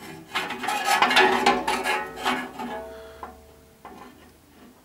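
Sheet-metal fan mounting bar scraping and clattering against a metal cabinet panel, with a short metallic ringing about three seconds in and a few light clicks as it dies away.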